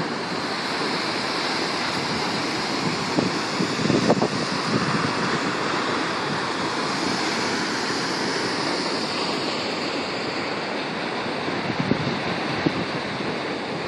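Steady rushing roar of a waterfall, even and unbroken, with a couple of faint knocks.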